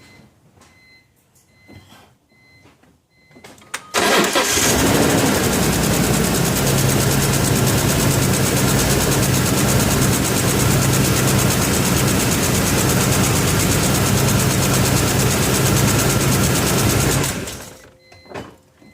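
BMW E46 M3's S54 3.2-litre straight-six starting about four seconds in, running with a misfire for some thirteen seconds, then switched off and winding down. The misfire was traced to a broken rocker-arm retaining spring clip.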